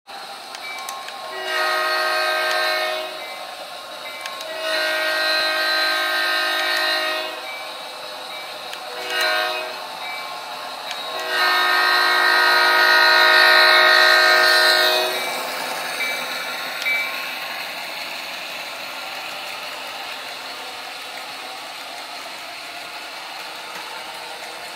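Model diesel locomotive's sound-system horn blowing the grade-crossing pattern: two long blasts, a short one and a final long one, a multi-note chord. After it, the steady rumble of the train's wheels as the freight cars roll past on the track.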